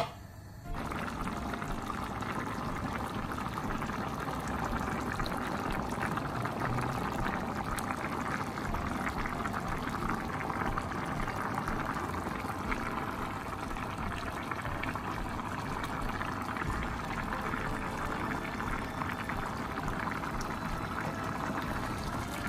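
Mutton yakhni stock with rice in it at a rolling boil in an aluminium pot, a steady bubbling and hissing that starts suddenly about a second in, as the rice cooks to half done.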